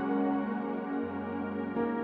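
Calm ambient new-age music of long held chords that shift every second or so.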